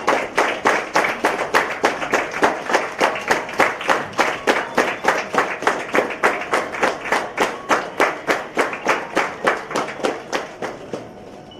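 Audience clapping in time together, about four claps a second, fading out near the end.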